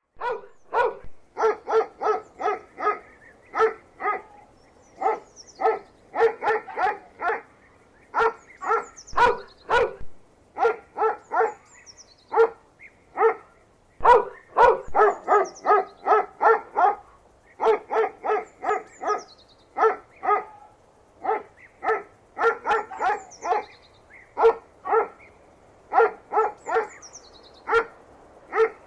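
A dog barking in quick runs of several barks, about three to four a second, with short pauses between the runs.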